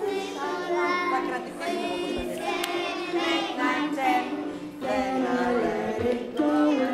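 A group of young children singing a song together, led by a woman's voice.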